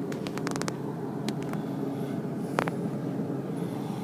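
Steady low hum of a yacht's onboard machinery and air conditioning, with a quick run of light clicks in the first second and a sharper single click about two and a half seconds in.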